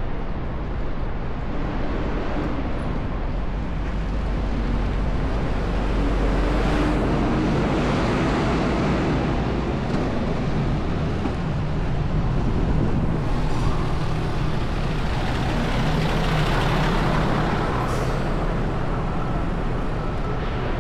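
City traffic on a busy avenue: motor vehicles passing, with an engine drone for several seconds in the middle and a brief high squeal near the end, over steady wind rumble on the camera microphone of a moving bicycle.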